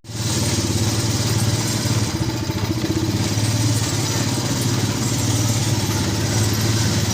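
A vehicle engine idling steadily with an even, rapid firing pulse.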